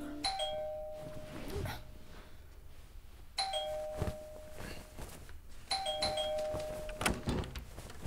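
Two-tone electronic doorbell chiming 'ding-dong' three times, each a higher note stepping down to a lower held one, with a few soft thuds between the rings.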